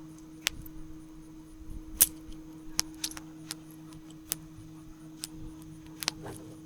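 Scattered sharp metallic clinks and taps, about nine over several seconds with the loudest about two seconds in, as a metal tool pokes through the homemade forge to find and pull out the heating piece of metal. Under them runs a steady low electric hum.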